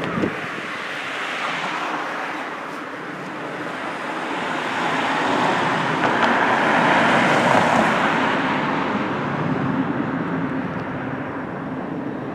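Road traffic: a motor vehicle passes, its tyre and engine noise swelling to its loudest about halfway through and then fading, over a steady background of traffic hum.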